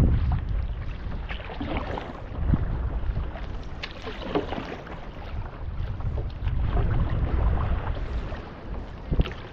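Wind rumbling on the microphone, with intermittent splashes of a stand-up paddle dipping into and pulling through calm, shallow water.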